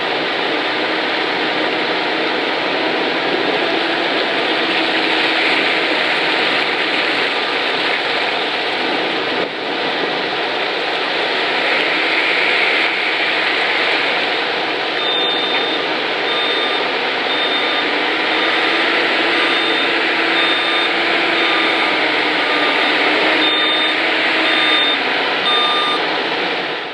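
Caterpillar TL642C telehandler's diesel engine running steadily as the machine drives. From about halfway through, its reversing alarm beeps at a regular pace as it backs up.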